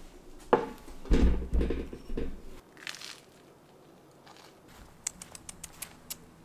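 Crisp toast being handled and bitten into: heavy thumps and crunching about a second in, then a quick run of sharp clicks near the end.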